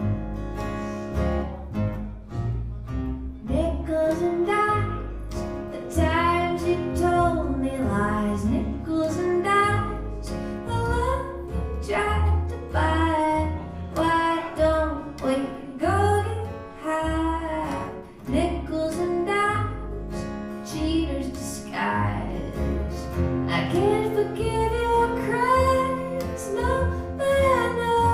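A woman singing a song with a strummed guitar accompaniment, performed live through a PA.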